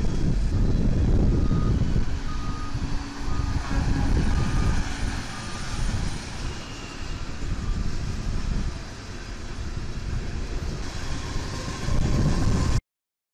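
Rail track-maintenance machines and freight cars rolling past with a heavy low rumble, while a warning alarm beeps repeatedly, a little over one beep a second, through the first five seconds. The sound cuts off abruptly near the end.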